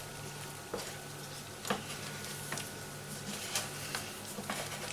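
Pancake batter frying in oil in a frying pan, a steady faint sizzle broken by about five sharp ticks, over a steady low hum.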